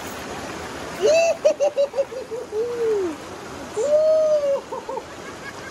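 A baby's high voice over the steady rush of creek water: a quick run of about six short laugh-like sounds about a second in, a gliding note after them, then a longer rising-and-falling note with two short ones near the end.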